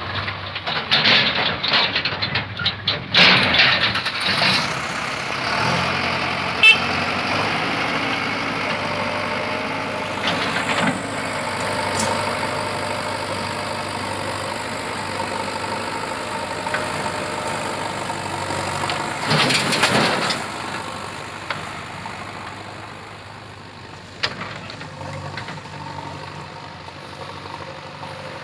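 JCB backhoe loader's diesel engine running, loud and rattly close up for the first few seconds, then steadier. A brief burst of noise comes about twenty seconds in.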